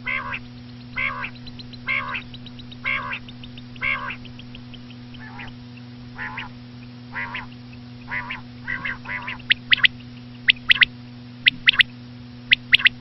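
Common quail calling: raspy notes repeated about once a second, then from about ten seconds in sharper, higher notes in quick groups of two or three.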